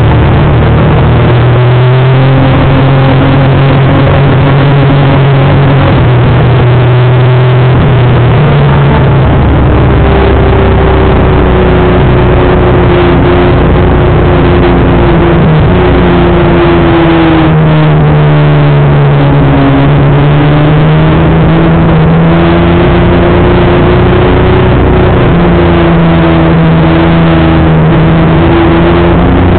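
Honda CBR250R (MC19) four-cylinder race engine running hard at high revs, its pitch holding, then dropping and climbing again as it shifts gears, under a heavy rush of wind on the onboard microphone.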